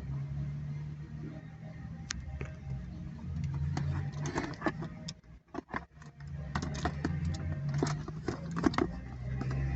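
Packaging being handled: irregular clicks, taps and rustles, over a low hum that comes and goes.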